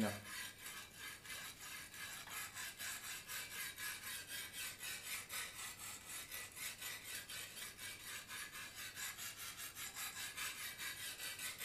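Oiled 280-grit honing stone of a Lansky guided knife-sharpening system stroked quickly along a kitchen knife's edge: an even, regular scraping at about five strokes a second.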